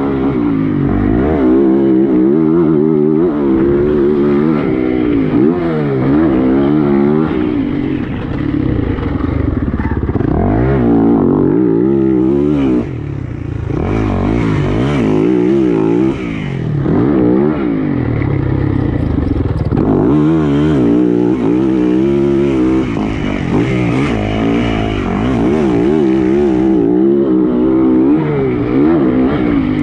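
Motocross bike engine being ridden hard, its pitch rising and falling every second or so with throttle and gear changes. It eases off briefly about thirteen seconds in.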